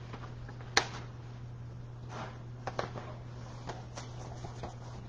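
Sheets of paper being handled between poems: a sharp click about a second in, then a few soft rustles and taps, over a steady low hum.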